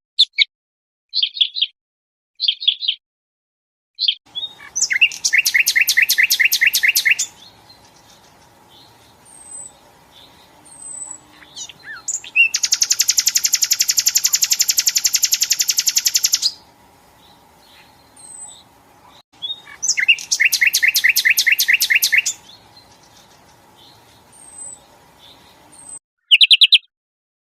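Songbirds singing: short high chirps and three long, fast rattling trills, the middle one about four seconds long, over a faint steady background hiss.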